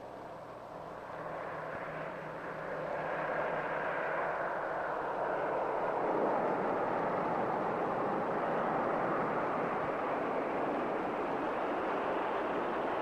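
Vickers Supermarine Stranraer flying boat's Wright Cyclone radial engines at high power as the hull runs across the water on its take-off run. The sound grows louder over the first three seconds, then holds steady as an even rushing noise.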